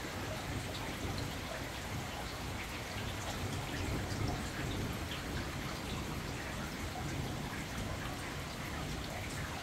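Steady rain falling, with individual drops landing close by, over a low, swelling rumble.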